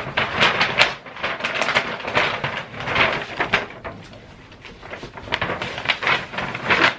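Paper crinkling and rustling in quick irregular bursts as a present is wrapped in scrap paper and packed into a gift bag, easing off for a moment about four seconds in.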